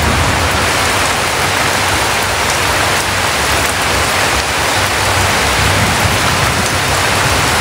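Rain falling steadily, an even hiss that does not let up.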